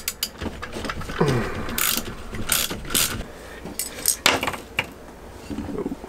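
Ratchet wrench clicking in short runs as fasteners are worked loose on a YD100 bicycle engine, with metal parts clinking.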